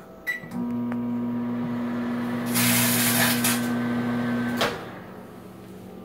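Over-the-range microwave oven: a button beep, then the oven runs with a steady low hum for about four seconds and stops with a click. About two and a half seconds in there is a loud crackling noise lasting about a second, from the foil-lined Doritos bag heating and shrinking inside.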